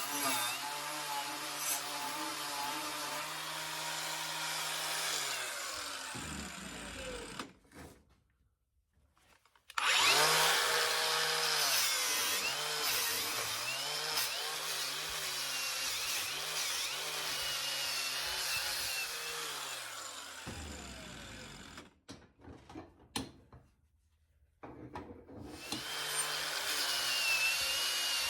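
Electric power tool cleaning a metal part of a VW pedal assembly, with scratchy noise from the work over the motor. It runs in three spells: it winds down and stops about seven seconds in, starts again near ten seconds and runs to about twenty, then starts again about twenty-five seconds in.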